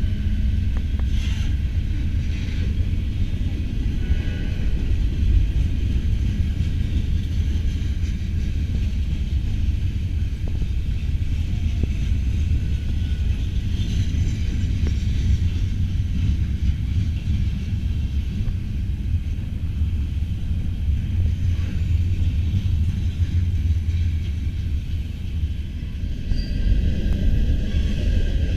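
Freight train cars (covered hoppers, coil steel cars and boxcars) rolling past close by, a steady low rumble of steel wheels on the rails.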